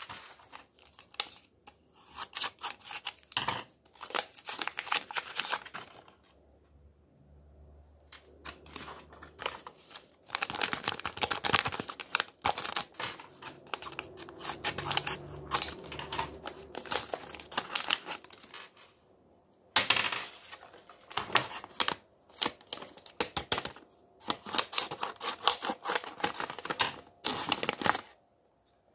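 Sheets of paper being folded and handled, rustling and crinkling in bursts with short pauses between them.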